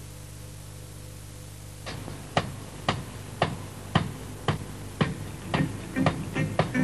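A low steady electrical hum, then about two seconds in a drum beat starts: sharp, evenly spaced hits about twice a second, the opening of a music track.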